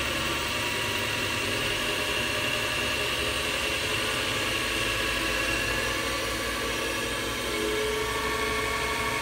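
Metal lathe spindle running steadily on a new V-belt drive from a VFD-controlled motor, at about 1,600 spindle RPM: an even hum with a faint high tone above it.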